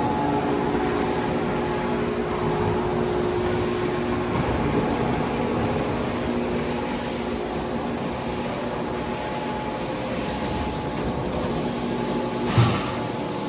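42-inch Blanchard rotary surface grinder running, a steady machine hum with several held tones, one of which drops out about a third of the way in. A single short clunk near the end.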